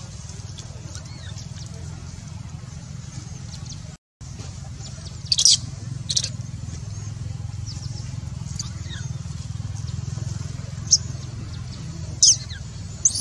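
Newborn macaque giving short, high-pitched squeaks, a few at a time, the loudest about five seconds in and near the end, over a steady low hum.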